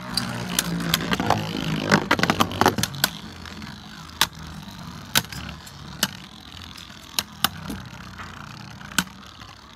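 Two Beyblade Burst spinning tops whirring across a plastic stadium floor and clashing. A quick run of sharp clacks comes between about two and three seconds in, then single clacks roughly once a second.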